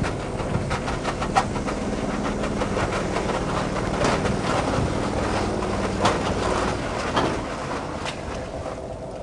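Boat-lift machinery hoisting a RIB out of the water on a cradle: a steady mechanical hum with repeated clanks and knocks. The hum stops about six seconds in, and the sound eases off near the end.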